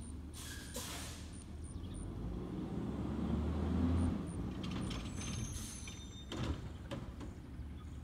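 2009 Autocar ACX garbage truck's CNG engine pulling up the street, growing louder until about four seconds in, then dropping off sharply as the driver lets off. A brief high squeal and a few short clanks follow.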